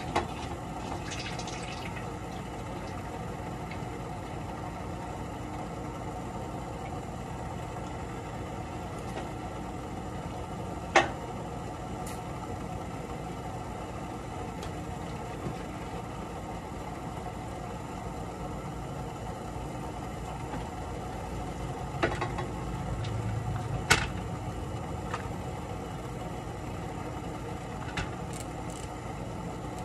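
A steady low hum with a handful of sharp clicks and knocks scattered through it, the two loudest about a third of the way in and near the end: kitchen handling sounds as food is packed into foam take-out containers.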